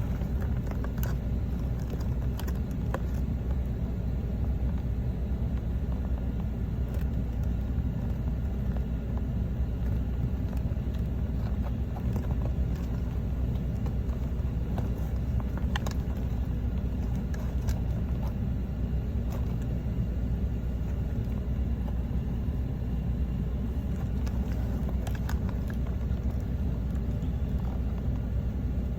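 A car on the move: steady, even road-and-engine rumble.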